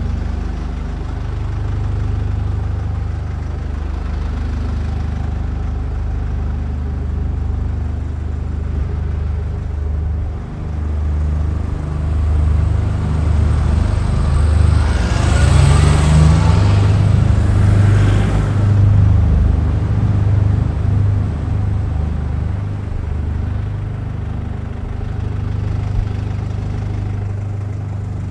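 A vehicle engine running steadily at low speed, a continuous low hum. About halfway through, a louder rushing sound swells up for a few seconds and then fades back.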